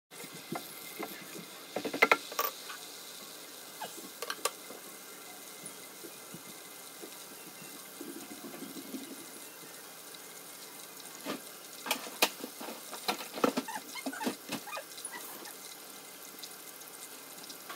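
Melted butter with minced garlic sizzling steadily in a stainless steel pan. A spoon knocks and scrapes against the pan in a cluster about two seconds in, and more sharp clicks and knocks come around twelve to fifteen seconds in.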